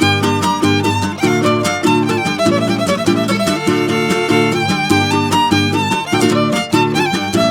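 Background music: an upbeat violin-led tune over a steady rhythmic accompaniment.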